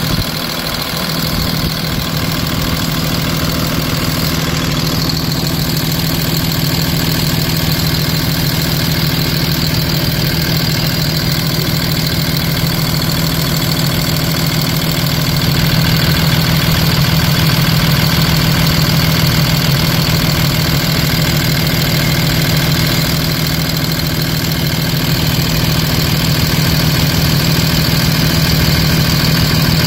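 2010 Cummins ISB 6.7 inline-six turbodiesel idling steadily, heard close up under the open hood.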